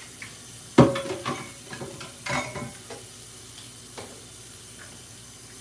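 Tap water running into a kitchen sink while a blender jar is rinsed. A sharp clank that rings briefly comes about a second in, followed by more knocks and clatter from the jar against the sink.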